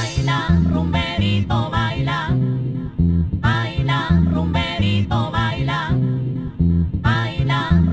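Latin dance music from an aleteo/pachanga DJ mix: a heavy, rhythmic bass line under a high lead that bends up and down in pitch in short phrases.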